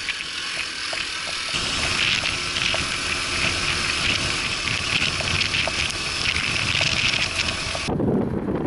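Steady rushing wind and road noise while riding a Honda Super Cub 50 moped, growing louder about a second and a half in. Near the end it cuts to strong wind buffeting the microphone, a low rumble.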